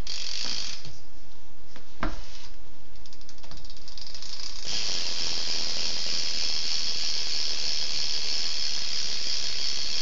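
Mission rear hub of a BMX bike clicking as the rear wheel is spun by hand. A few separate ticks and a knock come about two seconds in, then from about halfway the wheel runs fast and the hub gives an even, rapid buzz of ratchet clicks.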